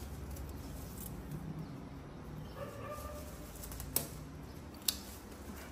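Two sharp snips of a cutting blade through vine branches, a little under a second apart near the end, over a faint low rumble.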